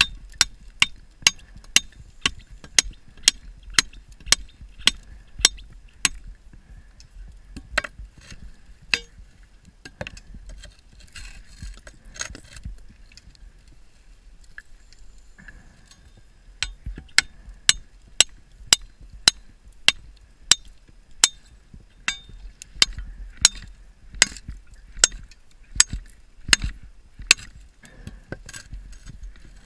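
Underwater, a metal bar striking the steel door of a sunken ship: sharp metallic clinks about twice a second, in two long runs with scattered single strikes between them.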